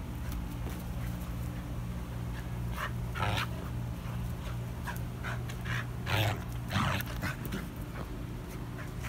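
A Griffon/wire-haired pointer mix dog making a few short breathy sounds while it plays with a soft fabric flying disc. The loudest come about three seconds in and again around six to seven seconds in, over a steady low hum.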